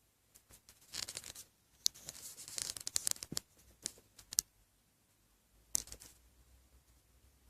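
Irregular scratching with sharp clicks and crackles, in a dense cluster lasting about four seconds and one more short burst about six seconds in. This is the unexplained noise heard from inside the walls of an old house during renovation; the uploader rules out birds, and says it did not come from the floor, so it was not the wood creaking.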